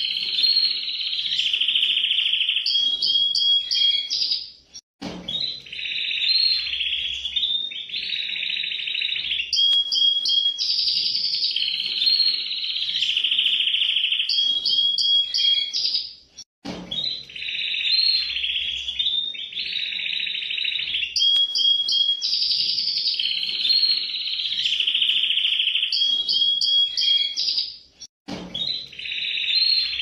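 A red-factor canary singing: long, rolling trilled phrases with fast repeated notes and sustained high whistled tones, broken by a brief pause three times.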